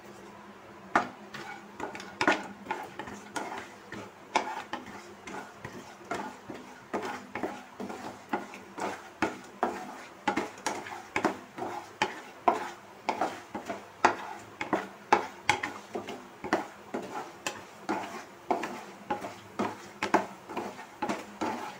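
Spatula stirring slivered almonds in ghee in a non-stick kadhai, scraping and tapping against the pan about two or three times a second as the almonds roast.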